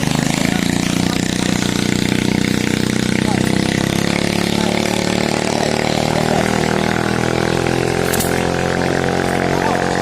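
Big-bore tuned motorcycle engine with a 92 mm piston running at fairly steady revs.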